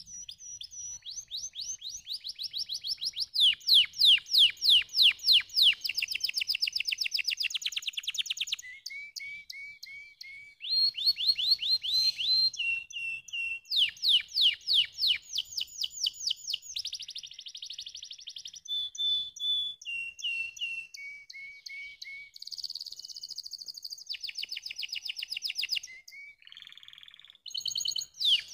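Canary singing a long song made of one trill after another: runs of quickly repeated notes, some fast and high, some slower and lower, with brief breaks between phrases.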